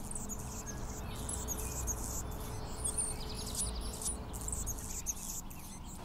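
Hummingbird calling: thin, high squeaky chirps, with a buzzy trill about halfway through.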